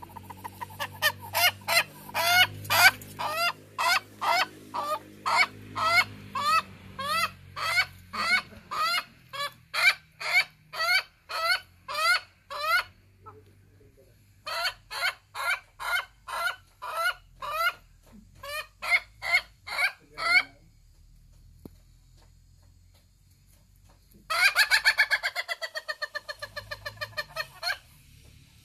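Ayam Ketawa rooster giving its laughing crow: a long run of short, evenly spaced notes, about two to three a second, that sounds like a human laugh. The run breaks off once, starts again, stops, and then after a few seconds of quiet comes a final, quicker burst near the end.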